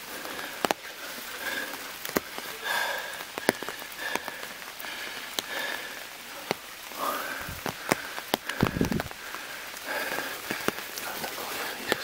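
Footsteps on a rocky mountain trail: shoes clicking and scuffing irregularly on stone and dry leaves over a steady hiss, with a low thump about nine seconds in.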